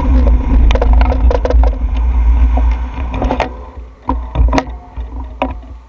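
Vehicle moving along a wet street: heavy low rumble of wind and road noise on the microphone with a steady hum and scattered rattles and knocks. The rumble drops about four seconds in, leaving sharper knocks.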